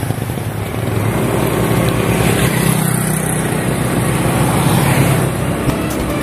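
Diesel engine of a heavy dump truck loaded with sand, running steadily as it comes down a steep grade.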